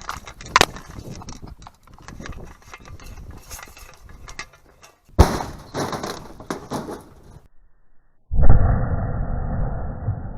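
Metal clanks and knocks as the washing machine's door is handled and set back in place, then after a brief pause a sudden loud blast of a car airbag going off inside the washing machine, dull in tone and dying away over about two seconds.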